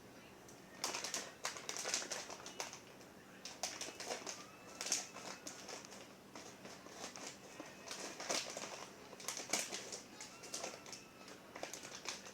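Irregular crisp crackling and crunching from cheese popcorn and its packaging, coming in uneven clusters.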